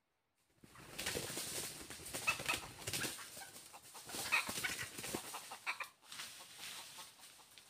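Red junglefowl clucking in short calls over a rustling noise, starting about half a second in.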